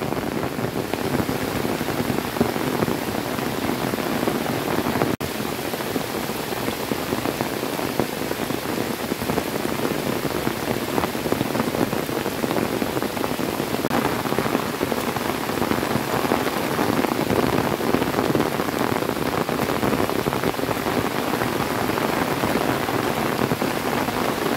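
Rain falling steadily on flooded rice paddies and the surrounding trees and grass, an even, dense hiss with no let-up.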